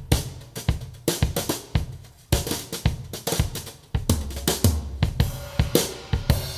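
Drum-kit music with kick, snare and cymbals, played back through a woofer driver as a test after its torn foam surround was patched with layers of tissue paper; the uploader thinks the repaired woofer still has problems.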